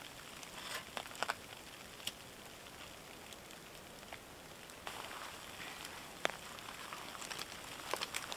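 Sleet pattering on a tarp overhead: a steady soft hiss with scattered sharp ticks and taps.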